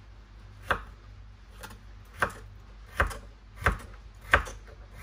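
Kitchen knife chopping carrot into cubes on a cutting board: single sharp knocks at a slow, fairly even pace of about one every 0.7 seconds, one of them lighter.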